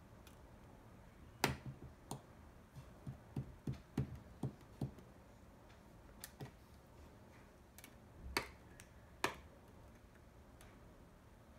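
Light clicks and taps of hard plastic being handled: the ant farm's test tube and gel container, with a quick run of about half a dozen taps around three to five seconds in and single sharper clicks scattered before and after.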